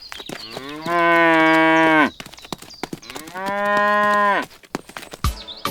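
A cow mooing twice. Each moo is a long, even call of about a second, starting with a short upward slide and falling off at the end, the second slightly higher than the first. Sharp clicks sound throughout.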